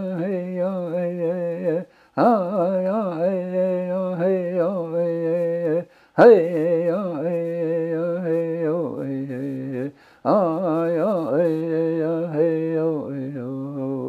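An elderly man singing a traditional Blackfeet song alone, without drum or other accompaniment. He sings long, wavering phrases of about four seconds each, breaking briefly for breath between them, and each phrase starts high and settles lower.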